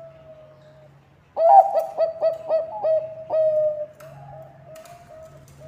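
Zebra dove (Bangkok perkutut) singing: a loud run of about seven quick cooing notes ending in a longer held coo. Fainter cooing is heard before and after it.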